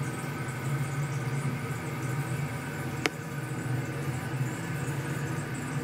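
Steady low mechanical hum, even throughout, with a single sharp click about three seconds in.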